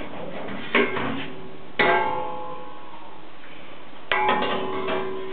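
Metal kitchenware clanging: three knocks, the second and third ringing on with a bell-like tone that dies away over a second or two.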